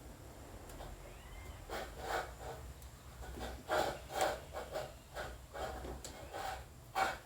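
An irregular series of short clicks and knocks over a low steady hum, starting a couple of seconds in.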